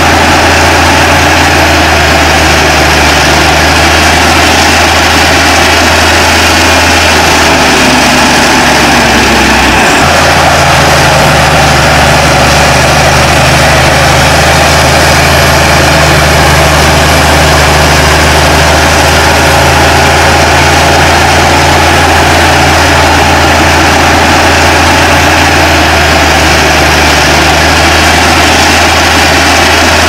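Heavy diesel engine of earthmoving machinery running steadily and loudly, with a dense mechanical clatter over a low engine hum. A brief dropout about ten seconds in, after which the same engine sound carries on.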